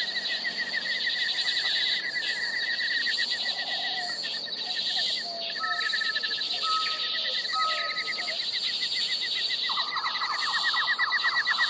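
Natural bush ambience: insects trilling without a break and birds calling. There are three short whistled notes around the middle and a rapid rattling call near the end.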